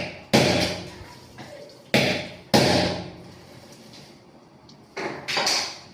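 Hammer blows during plumbing work on a wall, about five sharp strikes in loose pairs, each dying away over about half a second.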